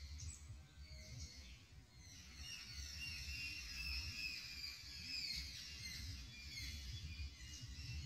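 Birds chirping, many short high calls overlapping throughout, over a low rumble.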